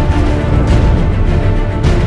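Music soundtrack with sustained tones over a heavy bass, and a sharp hit near the end.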